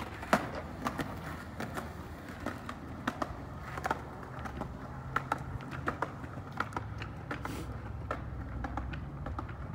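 Vintage Schwinn Varsity ten-speed bicycle rolling down a hill, with irregular clicks and rattles over a low steady rumble.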